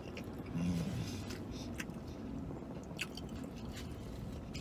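A man chewing a mouthful of burrito with his mouth closed: soft wet smacks and small clicks. There is a short low hum about half a second in.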